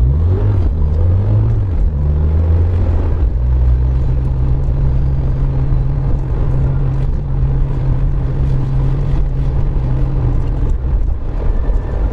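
Car engine heard from inside the cabin, rising in pitch in steps as the car pulls away, then running steadily at a constant speed over a low road rumble, with tyre noise on the wet road.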